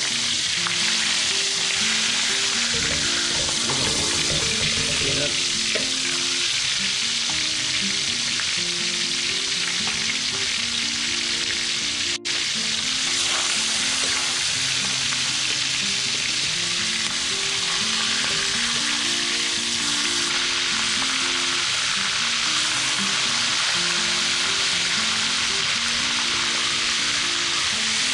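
Squid frying in hot vegetable oil in a steel wok, sizzling steadily, with some clatter of metal tongs against the wok about three to five seconds in. Quiet background music plays underneath.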